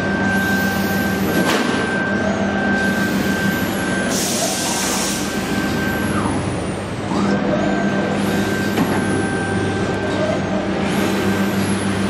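CNC plasma cutting machine running: a steady hum and whine under a hiss of air. The whine falls away about six seconds in and rises back a second later.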